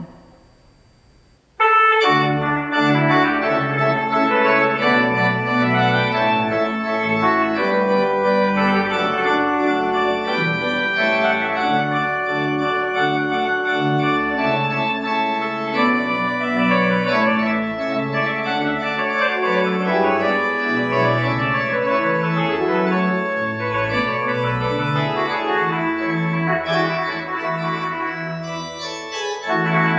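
Church pipe organ playing the postlude after the benediction: full, sustained chords with moving notes, starting about two seconds in after a brief hush.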